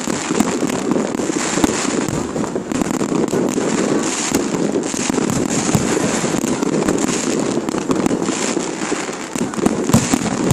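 Fireworks display: a dense, continuous barrage of rapid bangs and crackling, with no break.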